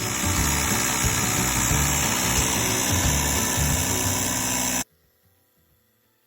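Powered air pump running steadily while inflating a bicycle tyre, with a loud even hiss, cutting off suddenly about five seconds in. Background music plays underneath.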